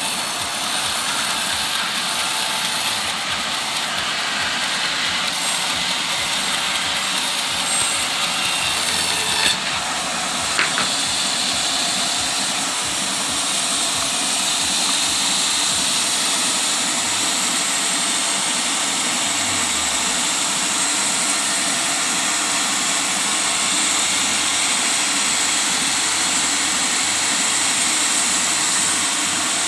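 Engine-driven circular sawmill running steadily while sawing teak, with two short knocks about ten seconds in.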